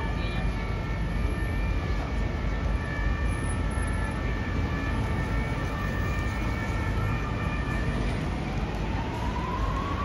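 Steady city traffic rumble with a few steady high tones, and an emergency-vehicle siren wailing up in pitch near the end.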